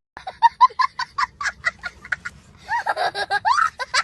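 A person laughing: a quick run of short bursts, about four or five a second, then a longer wavering voiced stretch near the end.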